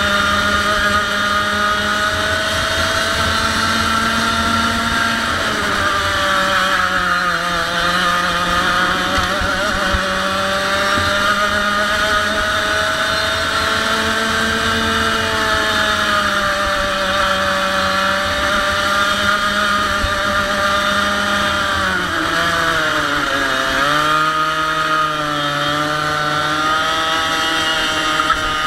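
100cc two-stroke kart engine running hard at high revs, its note rising and falling steadily. The pitch sags about six seconds in and dips deeply around twenty-two seconds in as the revs drop, then climbs back up.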